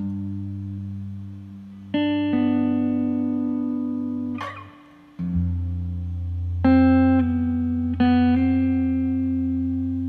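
Slow, psychedelic folk guitar music with no singing: ringing, sustained guitar notes and chords that change every second or two over a low held bass note. A brief scraping sound comes about four and a half seconds in, and the low note drops out for a moment just after.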